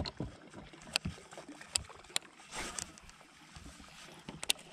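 Handling noises from a kayak and its fishing tackle: about five light, sharp clicks and taps against a faint wash of water.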